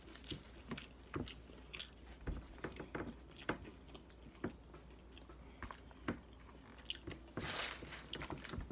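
Eating sounds: chewing and crunching of fried fast food such as onion rings, with scattered small clicks. A short, louder rustle comes about seven seconds in.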